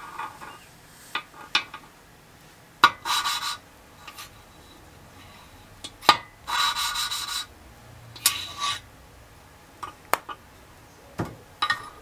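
Metal parts of a Kohler K301 engine being handled during assembly: sharp clicks and knocks, with three short scraping strokes of metal sliding on metal that ring faintly.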